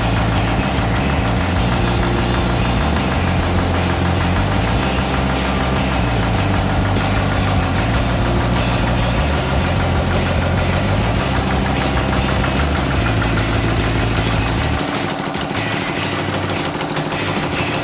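Air-cooled single-cylinder diesel engine running steadily with a rapid, even knocking beat, driving a hydraulic pump that circulates oil. Its low pulse weakens about fifteen seconds in.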